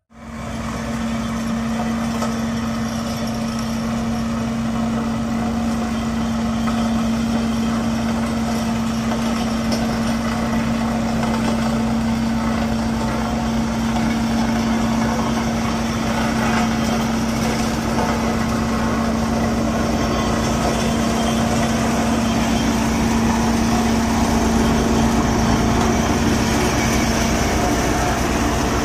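Heavy diesel engine of a road construction machine running steadily under load, with a strong steady hum, growing slightly louder toward the end.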